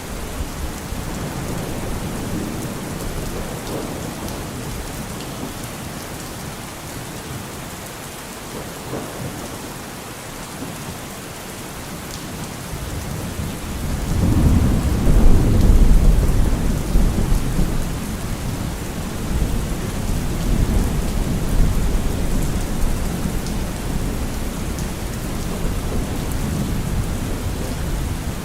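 Steady rain falling, with a roll of thunder that swells about halfway through, loudest for a few seconds, then keeps rumbling more softly under the rain.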